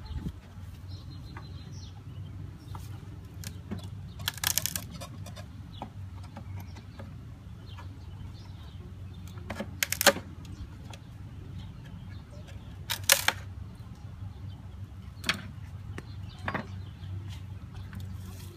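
Wooden bee package being handled and opened: about five sharp knocks and clicks spread through, the loudest about ten and thirteen seconds in, over a steady low hum.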